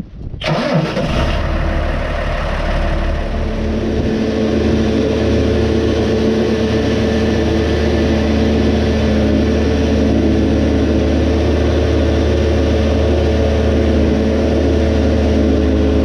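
John Deere 6506 tractor's diesel engine cranking and catching about half a second in, then running steadily.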